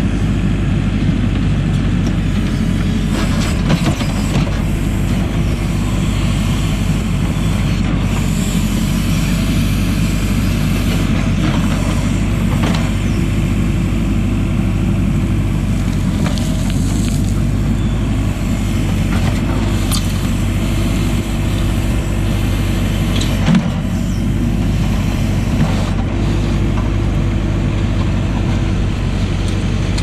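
JCB 4CX backhoe loader's diesel engine running steadily under working load while it spreads and levels gravel, with a few short knocks and scrapes of its steel bucket on the gravel.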